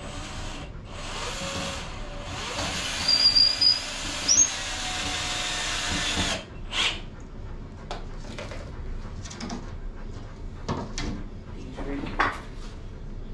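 Power drill running for about six seconds while working into the wooden base, with a short high squeal partway through, then stopping. Scattered clicks and knocks of wooden pieces being handled follow.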